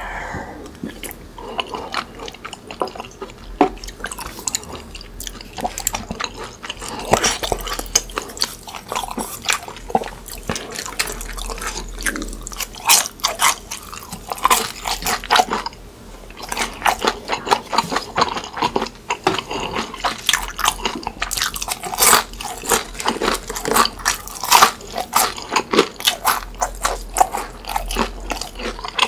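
Close-miked chewing and biting of a mouthful of tteokbokki and fried snacks: wet mouth clicks mixed with many crisp, irregular crunches, easing briefly about halfway through.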